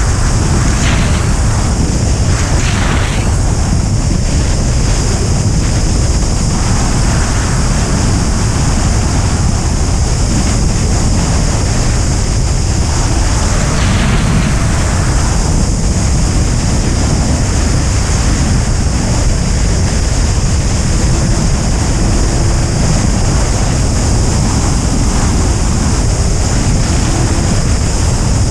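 Loud, steady rush of airflow buffeting the microphone of a camera mounted on a Duo Discus glider's wing in flight, with a few short gusts in the first few seconds and again about halfway.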